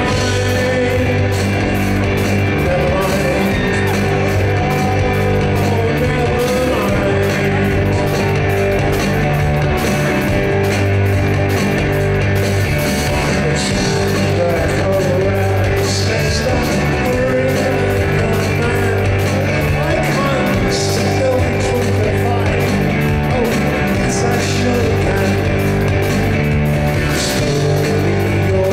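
Rock band playing live: electric guitar, bass guitar and drums, with a male lead singer.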